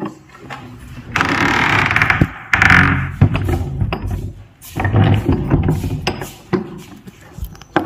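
A hand scraping and rubbing along an old, weathered wooden ceiling beam. Two longer rasping scrapes come about a second in and near three seconds, then shorter rubs and knocks.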